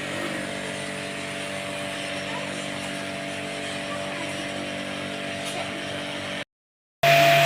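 Steady mechanical hum, several held tones over a hiss at an even level, cut off abruptly about six and a half seconds in by a brief total dropout, then a louder, stronger steady tone just before the end.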